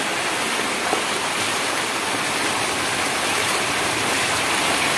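Floodwater from heavy rain rushing past in a continuous, even flow.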